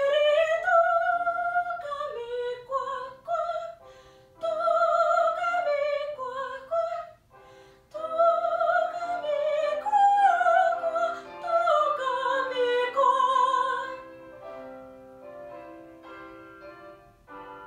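A woman singing in a classical, operatic style with vibrato over piano accompaniment. Her voice stops about 14 seconds in, and the piano plays on alone, fading near the end.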